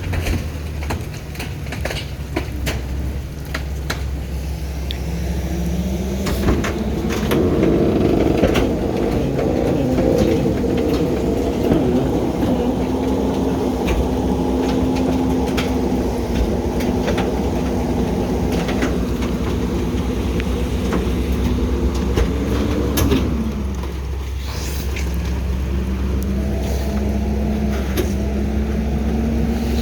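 Heil garbage truck's diesel engine running. Its pitch climbs over the first several seconds, holds, drops sharply a little past the middle, then climbs again. Scattered sharp clicks sound over it.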